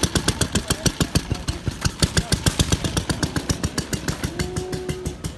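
Vintage motorcycle engine running at a slow idle. Each firing stroke is a separate pop, about eight a second, and the beat slows slightly and grows less even toward the end.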